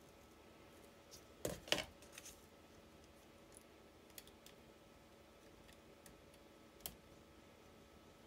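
Small metal clicks and taps of carbon brushes being worked into the brush holder of a Fiat 126 starter motor by hand: a quick cluster of sharp clicks about one and a half seconds in, then a few faint single ticks.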